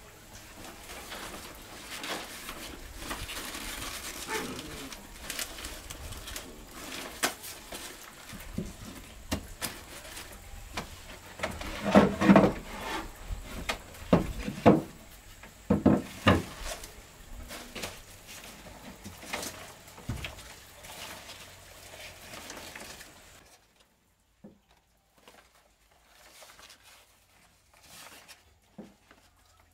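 Hands rustling large green leaves around a woven basket of bananas, with several loud wooden knocks of a board against a plank floor in the middle. Near the end the sounds turn faint, just a few light rustles and clicks.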